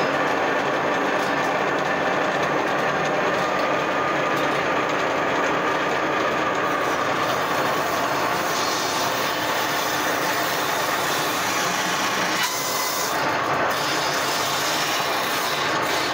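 A homemade table saw, its circular blade rising through a pallet-board table top, runs steadily while pallet slats are fed across the blade and cut to length, giving a loud, continuous whir mixed with the rasp of the blade in the wood.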